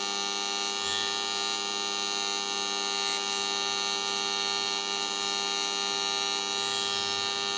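TIG welding arc on an aluminum plate, a steady electric hum with a high hiss over it, holding even throughout.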